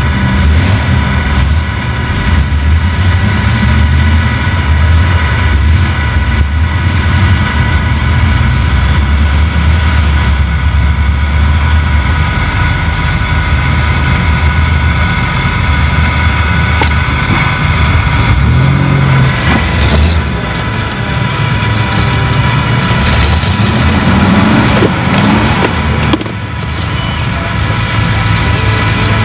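Off-road truck's engine running at low revs, heard from inside the cab as a steady low hum, with a few brief knocks.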